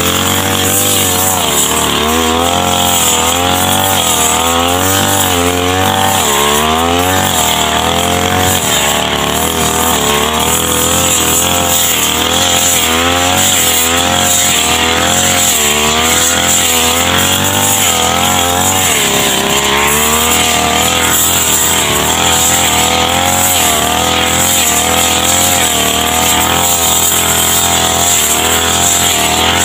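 Backpack brush cutter's small petrol engine running at high speed while cutting tall grass, its pitch rising and dipping over and over as the cutting head takes and sheds load.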